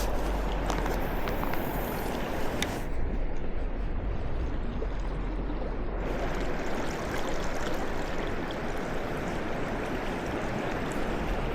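Steady rush of flowing river water. The sound goes briefly muffled, losing its hiss, for about three seconds starting about three seconds in.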